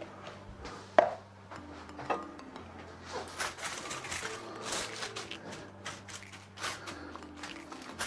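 Sauerkraut tipped from a container into a foil-lined baking dish and spread with a wooden spatula: a sharp knock about a second in, then irregular scraping and crinkling of the aluminium foil.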